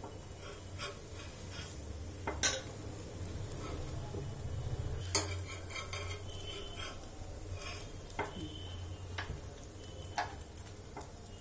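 Metal spatula scraping and tapping on a steel tawa as a paratha is turned over, with a few sharp clicks of metal on metal. A faint sizzle of the paratha frying in a little oil lies underneath.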